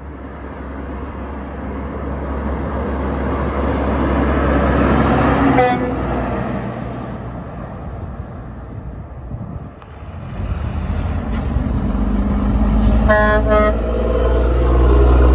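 Heavy diesel dump trucks passing with a low engine rumble, and air horns blown in short blasts: a brief toot about halfway through, then a louder chord of several tones, about a second long, from the Mack CH613's pair of Hadley H02001B air horns.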